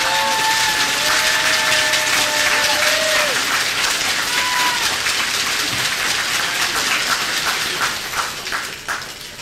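Bar audience applauding and cheering after a song: dense clapping with several whooping or whistling calls over the first few seconds. The clapping thins into scattered claps near the end.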